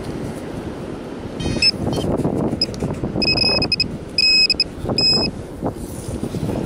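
Handheld metal-detecting pinpointer probed through a pile of dug beach sand. It gives a few short chirps, then three longer beeps about a second apart as it closes in on a buried coin, with the rustle and scrape of the sand being worked by hand underneath.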